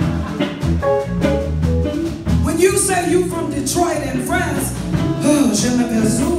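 Live band music with a singer's voice over a bass line and a steady beat.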